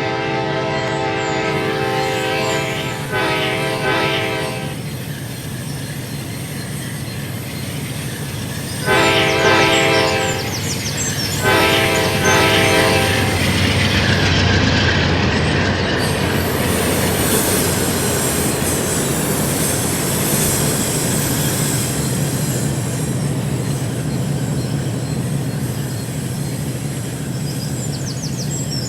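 Amtrak diesel locomotive's air horn sounding four blasts in the first thirteen seconds, the last two about two seconds each. After them the train runs past, with engine rumble and wheels clattering and squealing on the rails.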